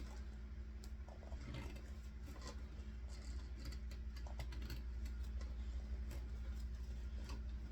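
Scattered small clicks and rustles of hands handling doll parts while a leg is fixed to the body, over a steady low electrical hum.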